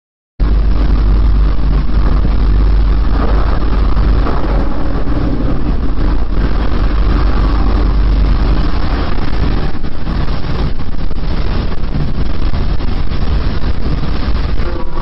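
Loud, steady low rumble, heaviest in the deep bass, starting abruptly about half a second in: the unexplained rumbling sound recorded outdoors.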